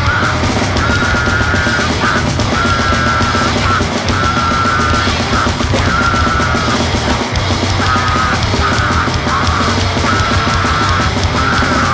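Loud, dense grindcore/noise music with no let-up, over which a short high tone repeats about once a second.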